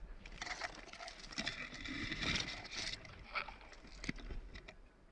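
Rustling and scuffing of a player moving through brush, with scattered sharp clicks and crackles, busiest around the middle.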